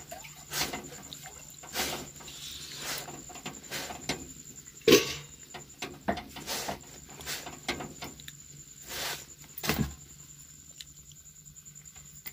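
Scattered taps and knocks of cooking at the stove, about seven in all with the loudest about five seconds in, as a roti is pressed down by hand on a flat iron tawa over a gas burner.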